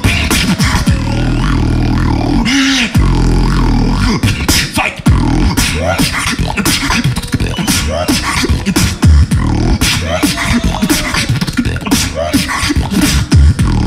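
Beatboxing into a handheld microphone: a fast, dense run of mouth-made snares and clicks over a sustained deep bass, with short sliding pitched vocal sounds in between.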